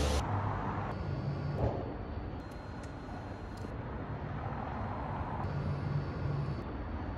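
City street ambience: a steady hiss of distant traffic with a faint low hum, changing abruptly several times.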